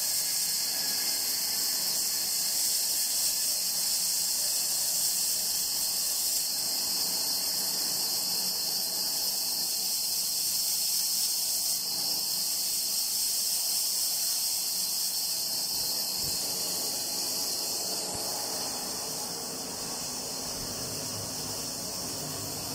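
Bandsaw running and cutting a curve through a natural rosewood blank: a steady high hiss. Near the end it gives way to a quieter electric motor running.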